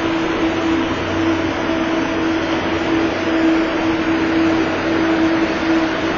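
A steady mechanical drone: an even rushing noise with a constant hum underneath, unchanging throughout.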